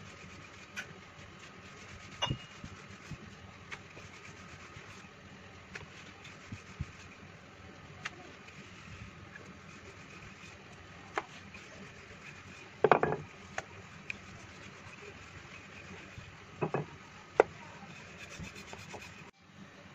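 Wooden rolling pin rolling out soft dough on a floured rolling board: a soft, steady rubbing, with scattered light clicks and a few louder knocks of the pin in the second half.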